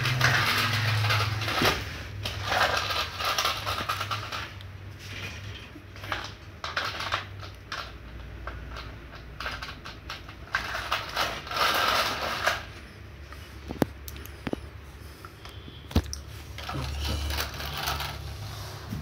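Plastic toy tractor pushed by hand over a rough concrete floor, its wheels and body rattling and scraping in spells of one to two seconds, with a few sharp clicks in the last third.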